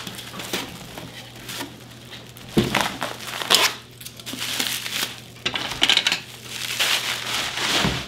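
Plastic bubble-wrap packing crinkling and rustling in irregular bursts as a wrapped item is pulled out of a cardboard box and unwrapped, with a couple of knocks as things are set down on the counter.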